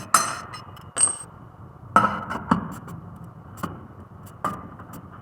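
Hand tools and metal parts clinking and knocking during brake work: about six sharp strikes spread over the few seconds, one ringing briefly, over a steady background hum.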